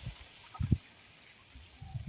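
Water just poured into a kadai of fried potatoes and taro, bubbling faintly, with low thuds on the microphone, the loudest about two-thirds of a second in.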